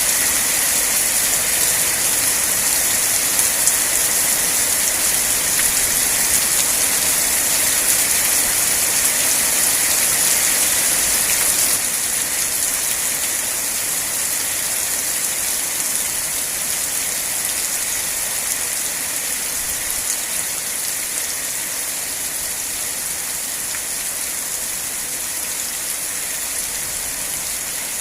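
Steady rain falling, a dense even hiss; the level drops a little about twelve seconds in.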